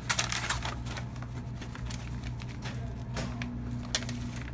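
Faint scattered rustles and light clicks, a cluster of them in the first half-second, over a steady low electrical hum; a faint steady tone joins about three seconds in.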